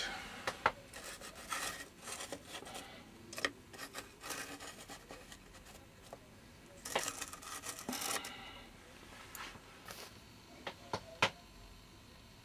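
Miniature soldiers on flocked bases being handled and turned round on a tabletop: rubbing and scraping as the bases slide, with scattered sharp clicks and knocks as they are picked up and set down, the loudest near the end.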